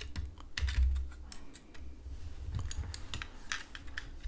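Irregular small plastic clicks and taps from the opened shell of a Trust Rexx vertical mouse being handled and turned over in the hands, over a low handling rumble.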